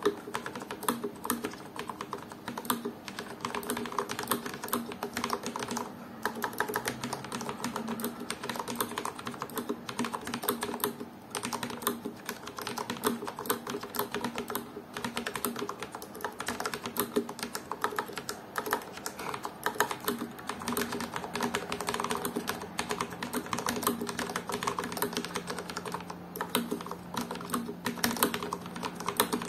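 Typing on a Corsair K60 RGB PRO Low Profile keyboard with Cherry MX Speed Low Profile linear switches: a fast, continuous run of key clicks with a few short pauses.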